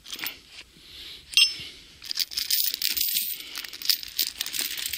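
Heavy steel chain being handled, its links rattling and clinking. There is one sharp, ringing metal clink about one and a half seconds in, then steady rattling of the links from about two seconds on.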